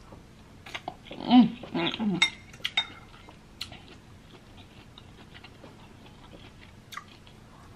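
A short wordless hum with the mouth full about a second in, followed by several light clinks of a metal fork against a glass bowl as collard greens are scooped up.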